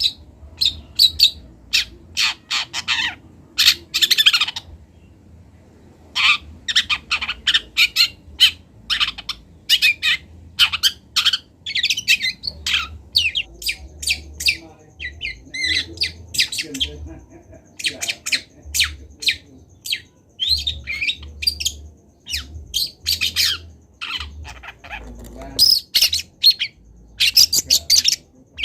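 Juvenile long-tailed shrike (cendet) singing: quick runs of short, scratchy notes and chirps, broken by brief pauses. It is a young bird still learning its song.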